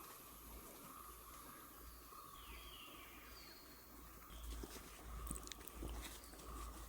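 Quiet forest ambience: a steady insect drone, a few short whistled bird calls, and footsteps on the trail with crunching clicks that grow louder in the second half.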